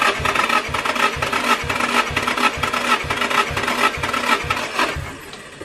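Starter motor cranking a Nissan SR20DET engine with fuel and ignition cut and the throttle held wide open for a compression test. It gives a steady whir with an even chug about three times a second as each cylinder comes up on compression, and stops near the end. The cylinder being tested builds about 8 bar (120 psi): the cylinders are even with each other, but the reading is below the expected minimum of about 9 bar.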